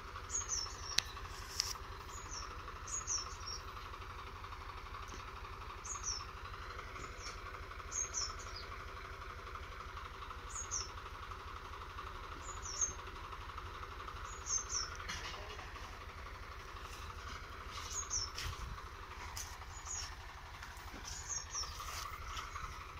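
Swaraj 735 FE tractor's diesel engine running steadily some way off, under repeated short, high bird chirps that fall in pitch, several every few seconds.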